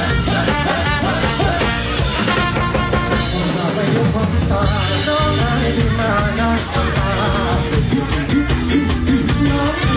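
A man singing into a microphone over loud amplified band music with a steady beat.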